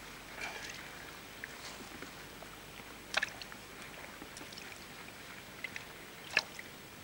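Water sloshing and dripping with wet netting rustling as an angler's keepnet is handled, full of small clicks and two sharper knocks about three and six seconds in.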